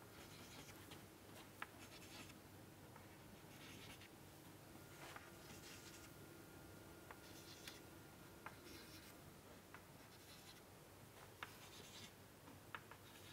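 Chalk on a chalkboard, faintly tapping and scratching out a series of dots: sharp little taps and short scrapes at an irregular pace.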